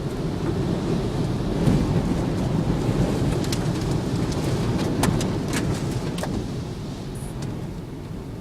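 Typhoon rain and wind hitting a car, heard from inside the cabin as a dense, loud low rumble, with several sharp taps on the body or glass in the middle. It eases off near the end.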